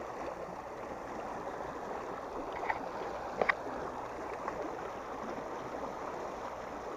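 Water gushing steadily out of a sluice-gate outlet into a river, with a few short sharp clicks about halfway through.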